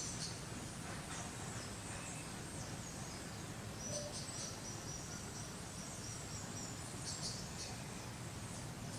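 Outdoor natural ambience: scattered high-pitched chirps and short descending trills from small animals, over a steady low background noise.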